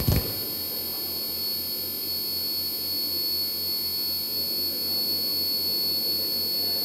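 Electronic drone from a sound installation's speakers: a steady buzz with two high whistling tones and a low pulse throbbing about four times a second. It starts as a loud noisy passage cuts off.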